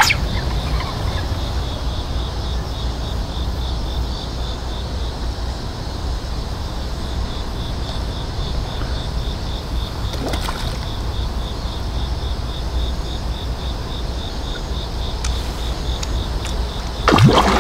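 Wind buffeting the microphone with a steady low rumble, under a faint high-pitched chirping that pulses evenly, and a brief louder sound near the end.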